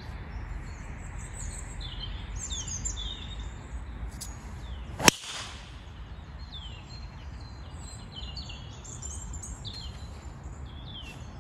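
A single sharp crack of a golf club striking the ball on a tee shot, about five seconds in, with birds chirping throughout.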